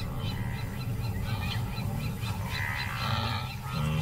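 Wild animal and bird calls over a steady low rumble, with the most prominent call about two and a half seconds in.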